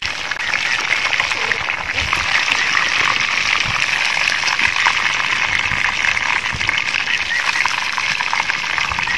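Battered chicken pieces deep-frying in a large pot of hot oil: a steady, loud sizzle and crackle. The chicken has browned and is being lifted out with a wire skimmer.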